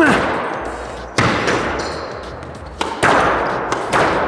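Squash rally: sharp smacks of the ball off racket and court walls, four or five about a second apart, each ringing out in the echo of the court.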